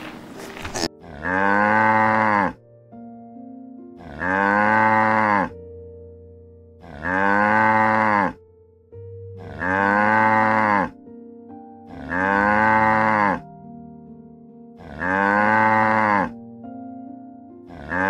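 A cow mooing over and over, starting about a second in, one moo about every three seconds, each rising then falling in pitch, with soft music underneath.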